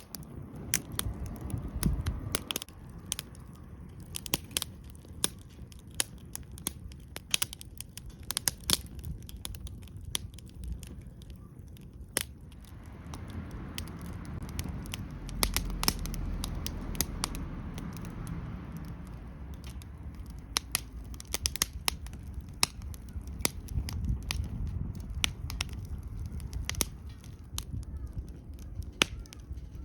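Wood fire crackling in a small fire pit: irregular sharp pops and snaps over a low rumble that swells in the middle.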